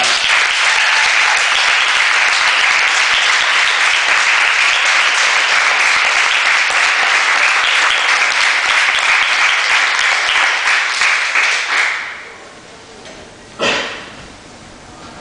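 A studio audience of ballet students applauding a finished variation, a dense patter of many hands clapping that dies away about twelve seconds in. A single short sharp sound follows near the end.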